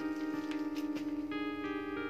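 Background music: keyboard playing sustained notes that change in steps.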